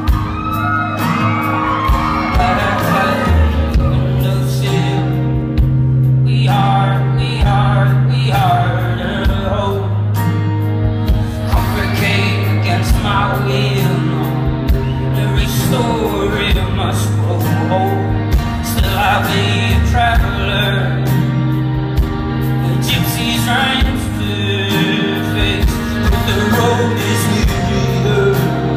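Live folk-rock performance: a male singer with strummed acoustic guitar over sustained low bass notes that change every couple of seconds, recorded from the audience in a theater hall.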